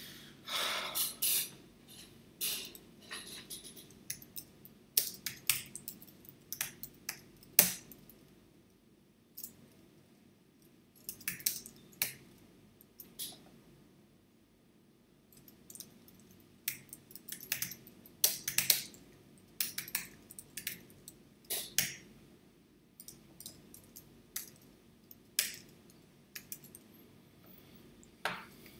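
Computer keyboard being typed on: short runs of key clicks with pauses in between as a sentence is written out.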